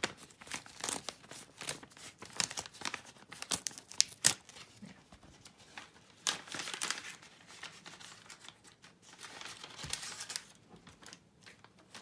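A paper envelope being torn open by hand, with irregular crinkling and rustling of paper and a few sharp crackles, the loudest about four seconds in.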